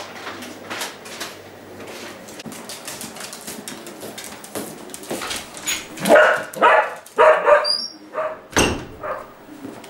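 A dog barks about four times in quick succession, the loudest sound here, followed by one loud thump. Light clicks and taps come before the barking.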